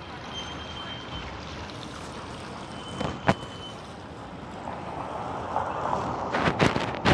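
Street traffic: a steady hiss of cars on the road, growing louder in the second half as a car approaches, with a few short sharp knocks about three seconds in and near the end.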